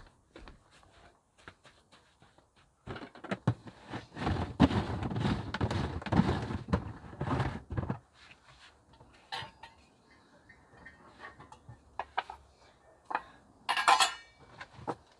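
Cooking gear being handled at a blue plastic storage drum: several seconds of rubbing and scraping as the drum's black screw-top lid is worked off, then scattered knocks and clinks as cookware and a wooden chopping board are taken out and set down, with a brighter clatter near the end.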